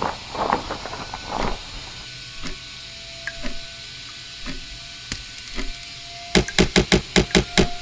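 Added sound effects: a crackly rustle of cloth, then a bomb's countdown timer ticking about once a second over a faint steady tone. Near the end comes a fast run of about eight loud, heavy clicks.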